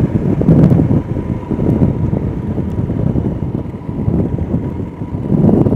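Wind buffeting the microphone of a 2021 Royal Enfield Himalayan ridden at about 70 mph on the highway, its 411 cc single-cylinder engine running underneath. A faint steady tone runs through the rumble.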